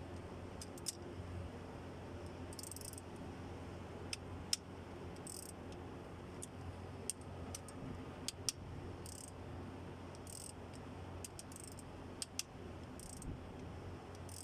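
Light metallic clicks and clinks of hand tools and engine parts being handled, scattered irregularly, with a few brief high hisses, over a steady low hum.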